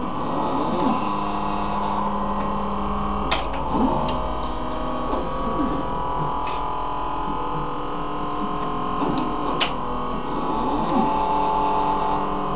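Leica CV5000 automated coverslipper running: its stepper motors whine in several steady tones that glide up and down each time a carriage starts and stops, over a steady hum. Sharp clicks come about every three seconds, three times.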